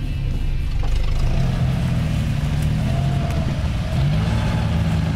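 Off-road motorcycle engine running under load, its revs falling and rising as the throttle is worked, with a clear rise about four seconds in.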